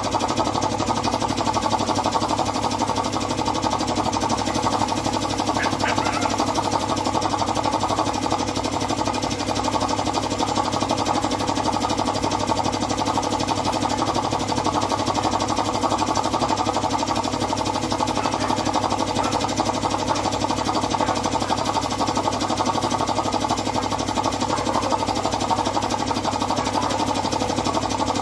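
Air compressor running steadily, supplying a paint spray gun that hisses as it sprays.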